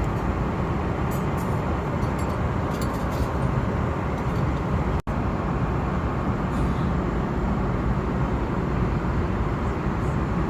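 Steady noise inside an Airbus A330 cabin, the constant hum of the jet engines and air, broken by a brief dropout about halfway through.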